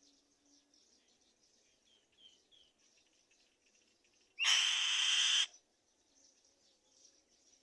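A black-winged kite gives one loud, harsh screeching call lasting about a second, starting and stopping abruptly. Before it, a few faint short chirps are heard.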